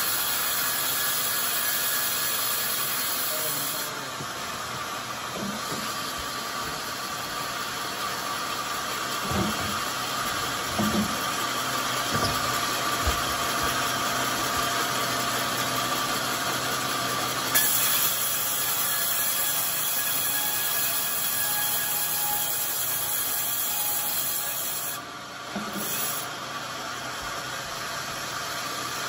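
Large sawmill band saw running steadily, with a few wooden knocks around ten seconds in.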